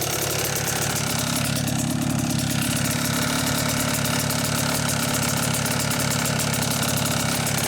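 An engine running steadily at idle, with a rapid, even pulsing.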